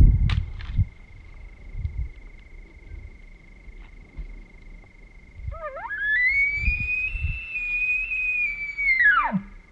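Bull elk bugling: a whistle that climbs from a low start to a high held note for about three seconds, then drops steeply at the end. The bugle comes in the second half. A low thump at the start is the loudest sound, with a few more scattered through.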